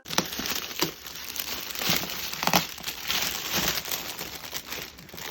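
Gift wrapping being handled, crinkling and rustling in irregular bursts.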